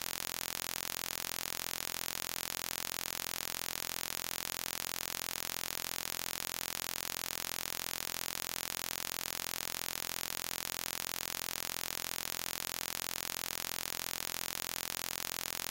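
Steady static hiss, unchanging throughout, with no other sound standing out.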